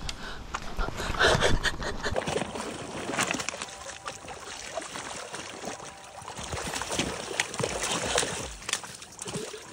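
Shallow lake water splashing and sloshing as a hooked bass thrashes at the surface and an angler wades in to grab it. The loudest splashes come about a second in, then it goes on in irregular smaller splashes.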